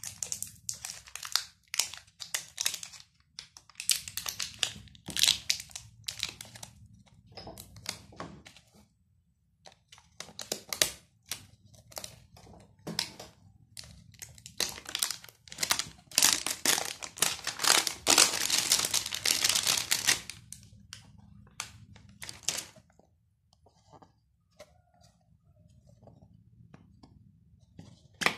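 Hands unwrapping a perfume box: crinkling and tearing of its wrapping in irregular crackly bursts. The crackling is densest and loudest for a few seconds past the middle, then dies down to faint rustles.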